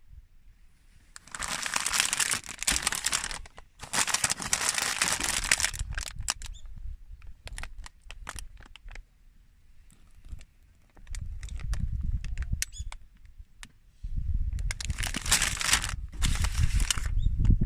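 Rustling and crinkling handling noise in several long bursts, with a run of sharp clicks in the middle and low thumps later on.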